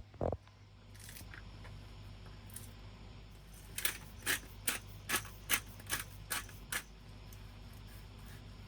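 A run of about eight short, sharp clicks or scrapes, two or three a second, over a steady low hum, with a single short thump just after the start.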